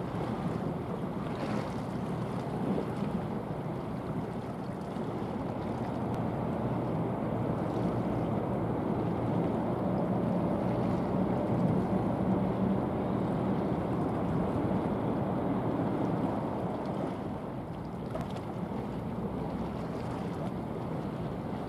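Wind on the microphone over steady waves, with a faint, low ship's engine drone that grows louder through the middle and falls away after about sixteen seconds.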